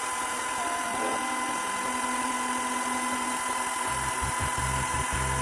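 CNC router spindle running with a steady high whine; a lower rumble joins about four seconds in.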